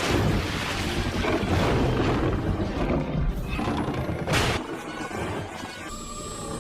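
Dragon sound effect: a loud, rough, rumbling blast lasting about four and a half seconds, with a sharp crack near its end, then a quieter stretch.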